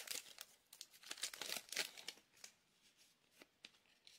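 Hockey trading cards being handled, slid and flipped through by hand: faint papery clicks and rustles, busiest in the first two seconds and sparser after.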